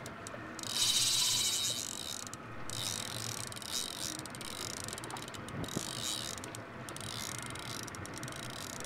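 A spinning reel's drag buzzing in bursts of rapid, high-pitched clicking as a hooked barracuda pulls line off against it. The longest and loudest burst starts about half a second in and lasts about two seconds, followed by shorter bursts.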